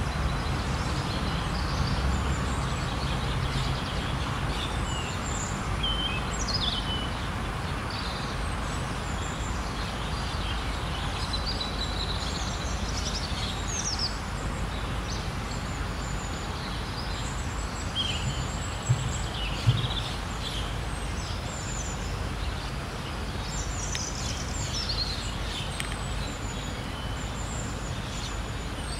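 Outdoor ambience of birds chirping: many short, high chirps and quick falling whistles scattered over a steady wash of background noise. There are two brief low thumps about two-thirds of the way through.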